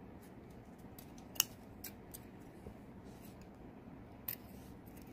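Scissors snipping through folded satin ribbon: a few short, sharp snips, the loudest about a second and a half in and another near four seconds.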